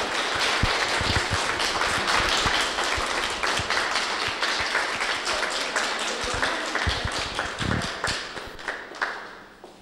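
A small audience clapping, the applause dying away near the end.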